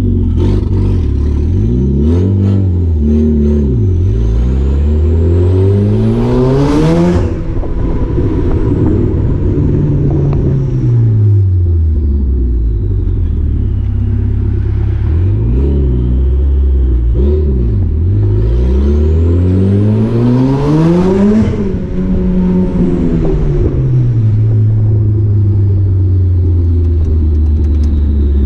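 Turbocharged Mazda MX-5 NC inline-four with an open downpipe, heard from inside the cabin, revving up hard twice with a high turbo whistle rising with it. Each pull peaks, about 7 and 21 seconds in, then drops sharply as the throttle comes off. Near the end it settles to a steady low cruise.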